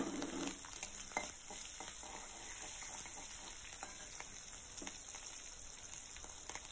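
Oil sizzling steadily in a wok where a tempering of dals, mustard seeds, dried red chillies and green chillies is frying, with a few faint clicks of the spatula in the pan.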